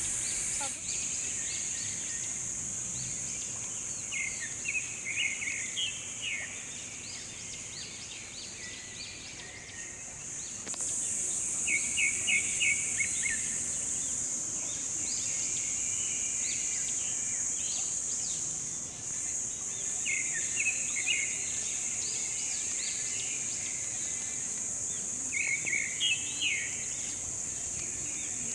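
A steady high-pitched insect drone with small birds chirping in short quick clusters every few seconds.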